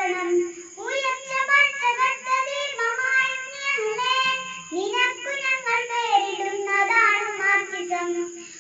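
A young girl singing a Malayalam song in lively phrases into a handheld karaoke microphone, with a faint steady high-pitched whine beneath her voice.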